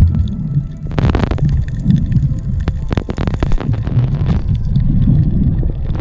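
Muffled underwater rumble picked up by a camera held below the sea surface, with two bursts of crackling, rushing water about a second in and from about three seconds in.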